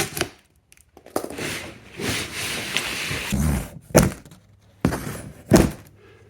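Large cardboard shipping box being opened: a couple of seconds of scraping and rustling cardboard, then two heavy thunks about a second and a half apart as the packed metal cart parts are handled.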